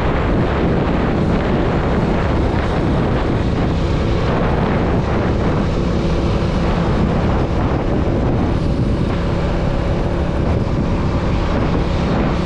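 Motorcycle riding at a steady pace, its engine running at an even pitch under heavy wind noise on the microphone.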